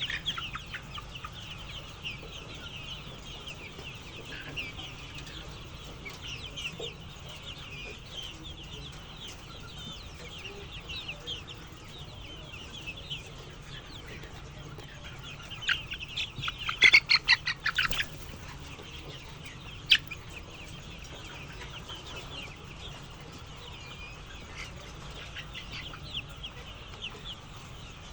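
A flock of chickens calling continuously with many short, high cheeps. About two-thirds of the way through comes a louder rapid run of calls lasting a couple of seconds, then a single sharp click a little later, over a steady low hum.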